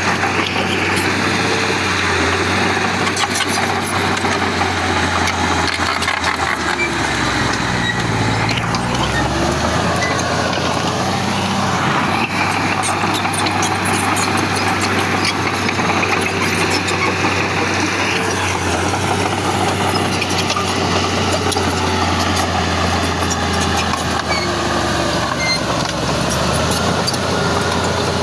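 Heavy earthmoving machinery's diesel engine running steadily with a constant low drone. The engine note drops briefly about eight seconds in, then comes back.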